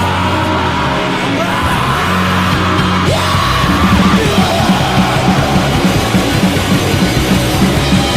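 Rock band playing a rehearsal recording, with yelled vocals over bass, guitar and drums; the playing turns denser and faster about three and a half seconds in.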